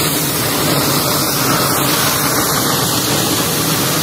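Confetti blower's fan driving a steady rush of air and confetti out through its tube.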